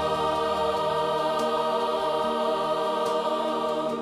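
Background music: a choir holding long, sustained chords.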